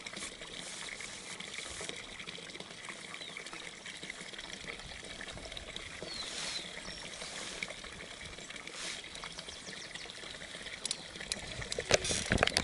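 Steady trickling of running water. Near the end, a few knocks and rubs as a hand handles the camera.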